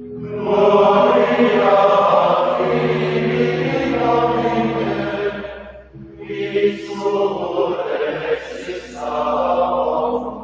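Benedictine monks singing Latin Gregorian chant of the Vespers office in one voice, in two long phrases with a brief breath about six seconds in.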